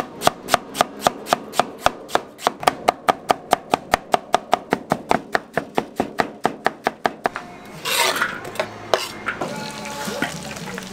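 Knife chopping quickly and evenly on a cutting board, about four strokes a second, stopping about seven seconds in; then a brief rough scrape and a low hiss.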